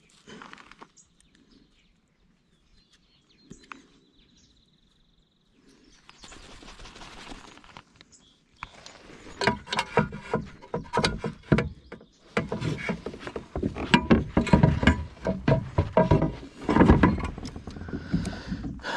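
Hollow knocks and clatter on a plastic fishing kayak, coming thick and loud from about nine seconds in after a mostly quiet stretch with a short rush of noise.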